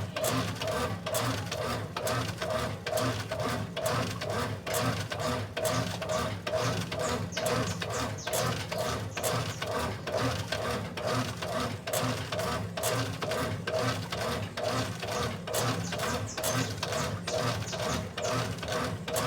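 Washing machine running its wash cycle: a steady mechanical whir with a regular pulsing rhythm, a couple of beats a second, as the drive agitates the load.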